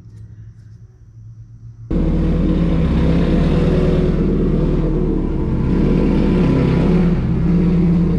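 2006 Subaru STI's turbocharged flat-four engine running at low revs as the car reverses slowly. The steady, loud exhaust note starts suddenly about two seconds in.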